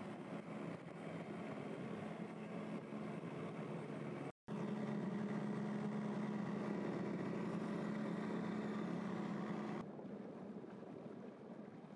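Small outboard motor running at a steady speed, with a brief dropout about four seconds in. About ten seconds in the motor sound gives way to a softer rush of wind and water.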